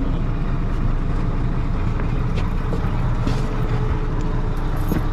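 Rosenbauer airport fire tanker's engine and fire pump running steadily, a continuous low rumble while water is being supplied to the roof turret.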